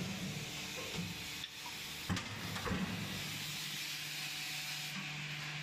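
Deep-draw press line running: a steady machine hum under a constant hiss, with a few sharp metallic knocks in the first three seconds as the press and its automated loader work.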